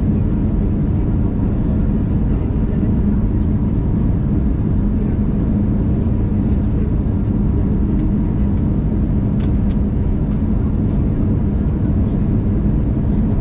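Steady cabin noise of an Airbus A319 on approach, the engines and airflow making an even low roar with a constant hum, heard from a seat over the wing. Two brief clicks about nine and a half seconds in.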